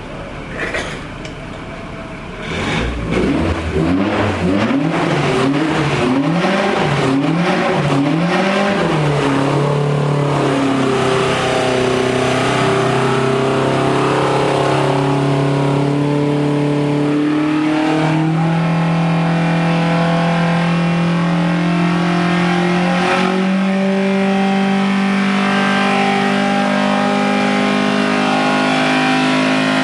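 2.5-litre Millington Diamond four-cylinder racing engine running on a dyno through a rally car exhaust. It is blipped up and down several times in quick succession. It is then held at steady revs that step higher twice.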